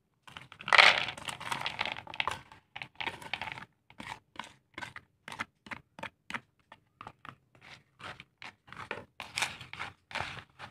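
Raw peanuts coated in egg and sugar tumbling from a small plastic bowl into a larger plastic basin, a dense rustle about a second in. Then a plastic spatula scrapes the bowl and stirs the peanuts in short strokes, about two to three a second.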